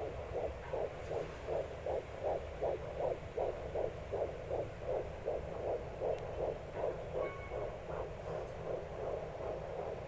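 Fetal Doppler's speaker playing an unborn baby's heartbeat: a fast, even pulsing of about two and a half beats a second (around 150 a minute) over a low steady hum.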